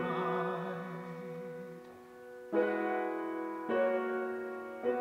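A man's sung note held with vibrato over sustained piano, fading away, then piano chords struck three times: about halfway through, about a second later, and just before the end.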